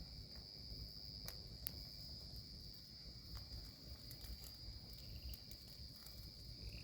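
Steady high-pitched chorus of crickets at night, with scattered sharp crackles from a bonfire.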